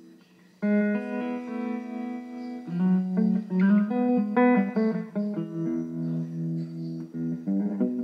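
Electric guitar played through an amplifier during a sound check. After a brief quiet start it comes in suddenly with a ringing chord, then plays a run of long-sustaining notes and chords that change step by step.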